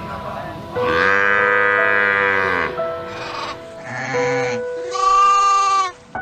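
Two long bleating calls from a farm animal, the first about a second in and lasting nearly two seconds, the second shorter near the end, over background music with steady held notes.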